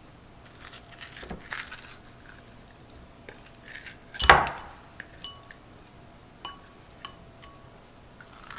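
A metal ice cream scoop scraping seeds and pulp out of a halved squash and tapping against a glass bowl: scattered scrapes and light clinks, a few with a brief ring, and one louder knock about four seconds in.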